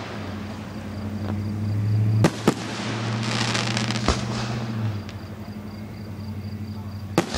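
Aerial fireworks shells bursting: two sharp bangs in quick succession about two seconds in, another about four seconds in, and one just before the end. A crackling hiss comes around three to four seconds in, over a low steady hum that fades out about five seconds in.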